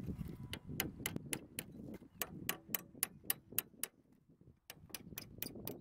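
Quiet, even ticking, about four clicks a second, with a short break a little after the middle.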